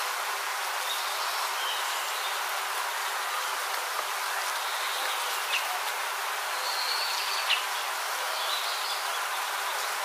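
Bees buzzing steadily in a dense, even hum, with a few short, faint bird chirps over it.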